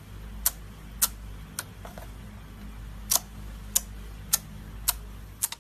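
Slime pressed and folded by hand, giving off sharp clicking pops as trapped air pockets burst, about one every half second with a short pause midway. A low steady hum runs underneath.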